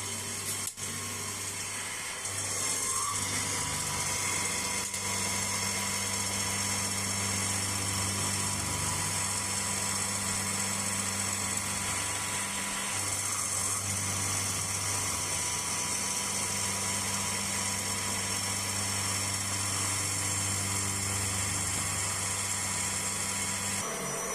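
CNC milling machine cutting with an end mill at its highest feed rate: a steady motor-and-spindle hum with a high cutting whine. It gets louder about two seconds in and stops just before the end.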